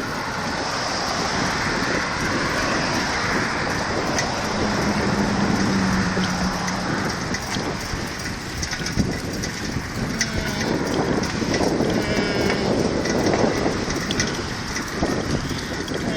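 Wind rushing over the microphone and road noise from a bicycle ridden at about 15 miles an hour, with small rattles and clicks. A low steady hum comes in for a couple of seconds near the middle.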